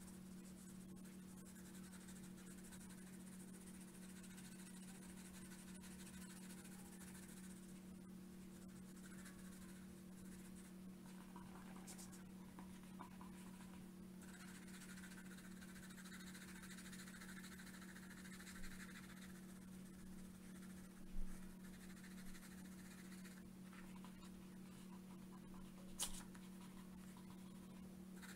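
Pencil shading on paper: soft, faint scratching of the lead rubbed back and forth, coming and going, over a steady low hum. A few light taps or knocks around the middle and near the end.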